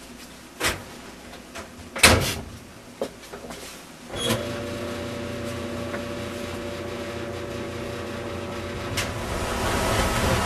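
Knocks and clatter at a top-loading washing machine, with a loud bang about two seconds in, then a steady machine hum that starts about four seconds in.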